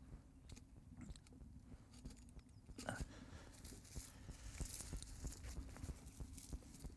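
Faint crackling and rustling of dry reeds as they are broken by hand and fed into the fire base of a lit Kelly kettle, with scattered small snaps and clicks.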